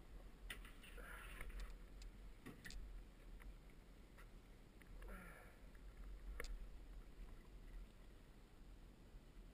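Near silence: a faint low rumble with a few light clicks, and two soft brief rustling noises about one and five seconds in.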